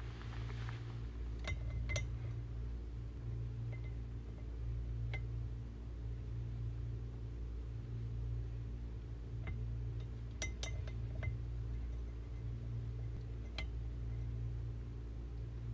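Small glass perfume-oil vials clinking against each other and the neck of a glass jar as they are set upside down to drain: scattered light clicks, several close together about two-thirds of the way through. A steady low hum runs underneath.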